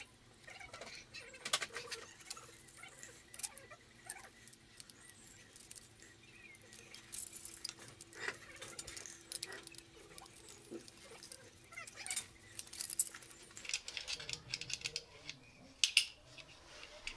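Scattered clicks and light metallic clinks from handling the parts of a motorcycle licence plate holder: a metal bracket, the reflector carrier bar, and small screws and nuts being fitted by hand.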